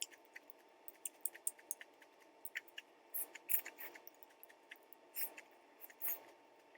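Close-up chewing of crisp cabbage: a run of small wet mouth clicks with a few louder crunches, about three seconds in, about five seconds in and near the end.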